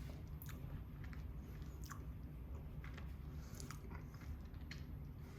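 A person chewing sugar apple close to the microphone: soft wet mouth clicks and smacks about once a second, over a low steady hum.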